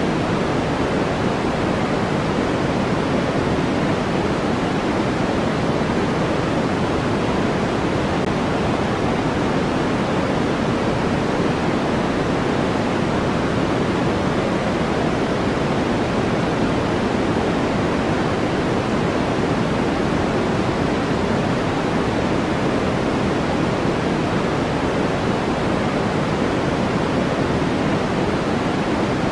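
Steady generated white noise: a constant, even hiss with no changes, fuller in the low and middle range than in the highs.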